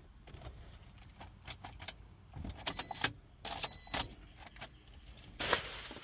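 Car keys jangling and clicking, with two short, high, steady electronic beeps midway and a brief rush of noise near the end.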